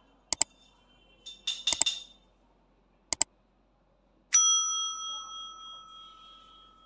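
Subscribe-button animation sound effects: a few sharp paired mouse clicks, then a single bell ding a little past the middle that rings on and fades over about three seconds.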